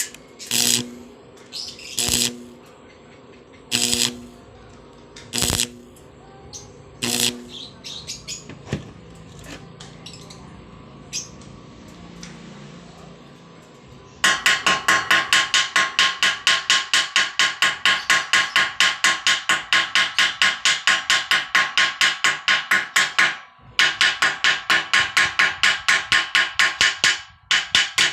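Welding arc on stainless steel. It first strikes in short separate bursts about every second and a half, then about halfway through switches to a fast, even pulsing, several pulses a second, as the fish-scale bead is laid. The pulsing stops briefly twice near the end.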